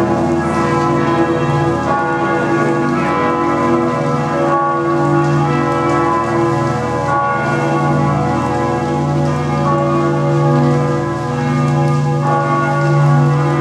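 The bells of Bern Minster ringing together in a full peal for the New Year: several bells sounding at once, their deep and higher tones overlapping without a break.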